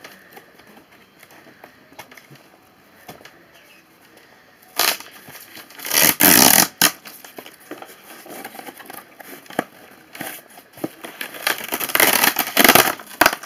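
A parcel's packaging being torn open by hand: tearing and rustling in three loud bursts, a short one about five seconds in, the longest and loudest around six seconds, and another around twelve seconds, with faint crinkles and ticks between.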